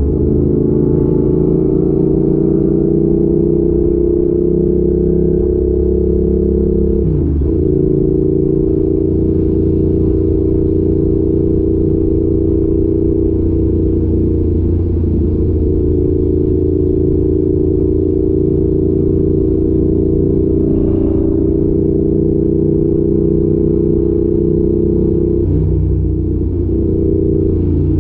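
Yamaha YZF R7's parallel-twin engine through an Arrow exhaust, running at steady revs while riding. The engine note briefly changes about seven seconds in and again a couple of seconds before the end.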